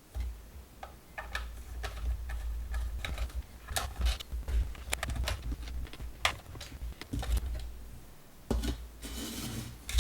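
Irregular clicks and light knocks of plastic parts of a Dyson fan being handled and taken apart by hand, over a low handling rumble.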